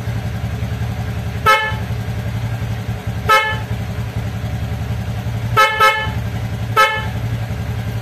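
Motor scooter's electric horn giving five short beeps: single toots about a second and a half and three and a half seconds in, a quick double toot near six seconds, then one more. Under them the scooter's engine hums steadily at idle.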